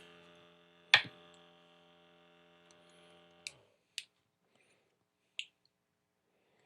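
Battery-powered Jet Gun coil cleaner's pump motor humming steadily, running but delivering no water, then stopping about three and a half seconds in. A sharp click about a second in, and a few lighter clicks after the motor stops.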